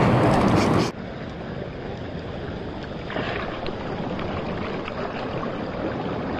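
Wind and surf at the shoreline: loud wind rushing on the microphone for about the first second, cutting off suddenly to a quieter, steady wash of small waves.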